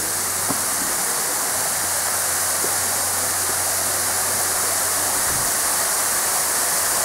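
Waterfall pouring down a rock face into a pool, a steady, unbroken rush of falling water.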